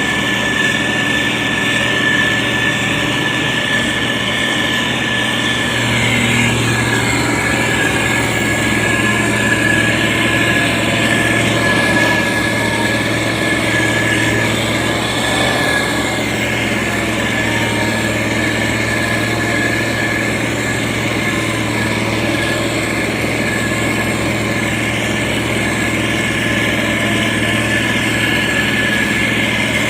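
Heavy road-construction machine's engine running steadily, with a steady high-pitched whine over it; the engine note grows a little stronger about six seconds in.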